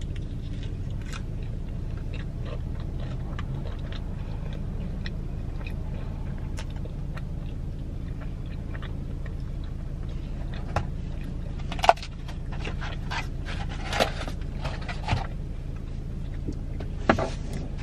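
Chewing and small mouth sounds from eating a cheese-filled pizza puff, over a steady low hum in a car cabin. A few sharper rustles and scrapes come in the second half, from handling the food and napkins.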